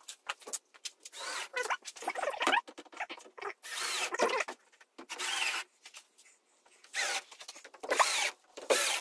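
Cordless 18 V drill-driver driving wood screws through a plywood floor panel, in about five short runs with pauses between, its whine rising and falling as each screw goes in.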